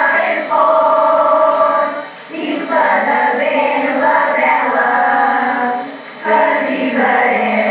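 A small group of voices singing a Catalan caramelles song together in long held phrases, breaking briefly about two seconds in and again about six seconds in.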